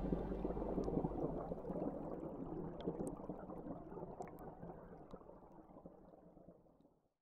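River water gurgling and bubbling over a stony bed, with scattered small clicks. It fades out gradually to silence near the end.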